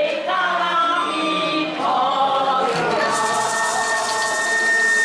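A small Taiwanese folk ensemble singing the last chorus of a Hoklo folk song, mixed voices together over bamboo flute, coconut-shell fiddle, wooden fish, metallophone and moon lutes. About three seconds in, the singing gives way to one long high note held into the end, with a bright hiss above it.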